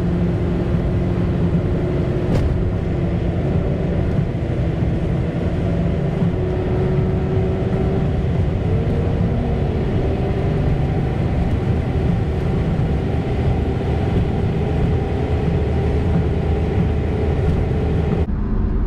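Steady road and engine noise of a car cruising on a highway, heard from inside the cabin, with a faint wavering hum over the rumble.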